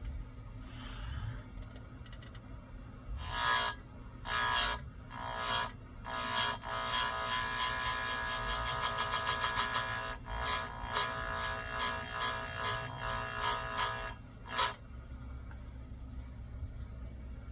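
Chainsaw chain teeth being sharpened: a run of short rasping metal strokes with a ringing edge. The strokes come about a second apart at first, quicken to a rapid series in the middle, then slow again and stop near the end.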